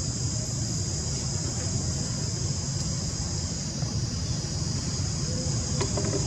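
Steady high-pitched buzzing of insects over a low, even rumble, with a couple of faint clicks near the end.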